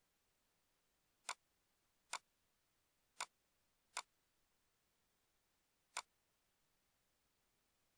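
Five single, sharp computer mouse clicks, unevenly spaced about a second apart, the last coming a couple of seconds after the fourth, over near silence.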